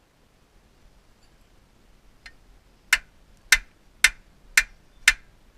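Sharp, evenly spaced mechanical clicks, about two a second, starting about three seconds in after a single fainter click.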